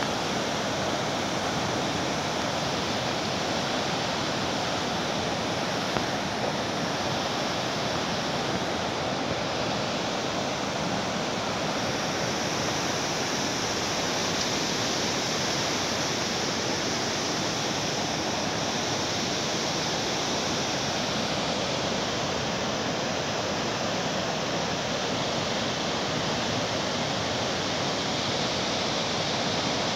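Floodwater rushing steadily over the concrete overflow section of a dam and churning in the river below.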